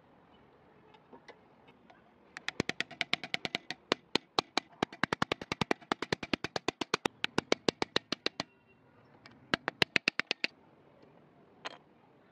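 Rapid hammer taps on a steel punch driving the old rivets out of a meat cleaver's handle, sharp metallic strikes at about six a second. After a short pause comes another brief run of strikes.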